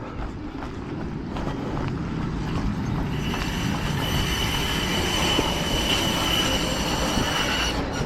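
A rail vehicle passing close by, growing louder, its wheels squealing in a steady high tone for several seconds before the squeal stops abruptly.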